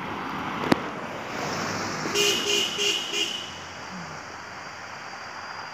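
A pickup truck drives past, then a vehicle horn gives four short toots in quick succession: the customary salute drivers give to the guardian spirit of the sacred tree. A sharp click comes just under a second in.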